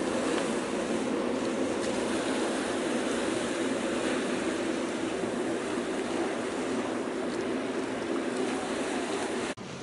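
Steady rushing noise of harbour water and wind, with no distinct engine note, cutting off suddenly near the end.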